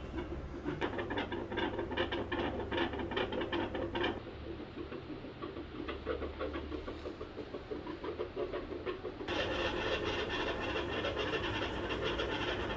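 Dogs' chests heard through a stethoscope: heart sounds under scratchy rubbing of the chest piece on fur, along with breath noise. The recording changes abruptly about four seconds in and again about nine seconds in, as a different dog's chest is heard.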